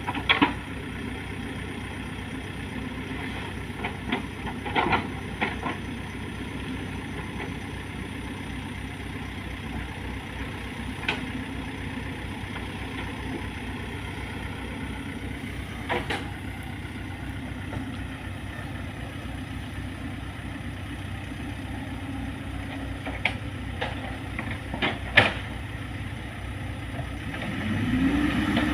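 An engine running steadily at idle, with a few sharp knocks or clanks now and then. Near the end it revs up, its pitch rising and holding higher.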